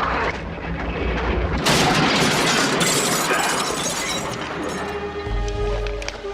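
A loud, noisy explosion- or crash-like burst about two seconds in that dies away over a few seconds, followed by a deep rumble near the end.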